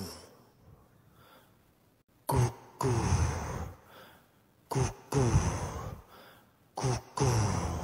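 A man's voice making three short grunts, each falling in pitch and followed by a harsh breathy sound of about a second, about two seconds apart.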